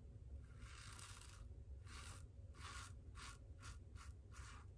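Faint scratching of a Supply single-edge injector razor cutting lathered stubble on the neck: one longer stroke, then a run of short, quick strokes.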